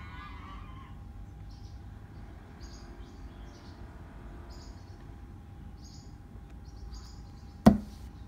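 Quiet outdoor background with a low rumble, a faint steady hum and short high chirps every second or so, then one sharp knock near the end.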